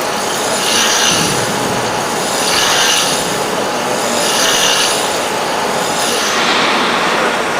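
CNC tool-grinding machine for face milling cutters running, with a loud, gritty hiss that swells and fades about every two seconds.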